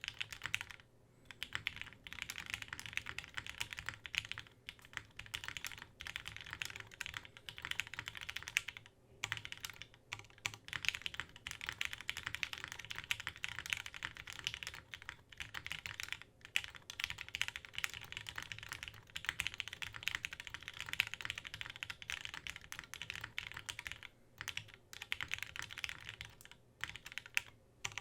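Mechanical keyboard with lubed Gateron Lion linear switches in a polycarbonate plate, under GMK keycaps, being typed on fast and continuously, with brief pauses about a second in, around the middle and near the end.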